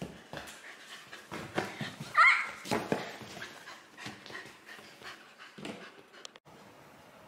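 Golden retriever panting in quick breathy bursts, with a short high whine about two seconds in.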